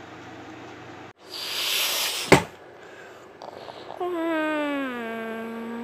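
Edited-in sound effects: a rushing whoosh that ends in a sharp click, then a long tone with many overtones that slides down in pitch and holds steady.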